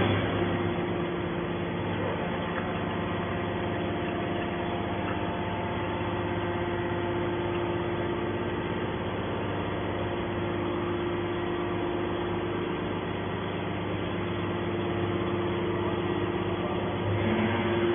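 Horizontal metal baler running, a steady machine hum at an even pitch and level.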